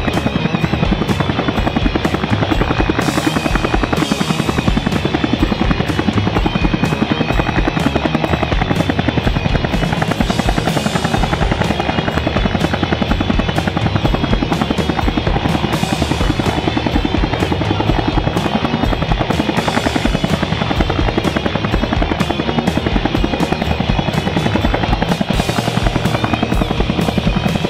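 Bell UH-1 'Huey' helicopter hovering, its two-bladed main rotor beating in a fast, steady chop.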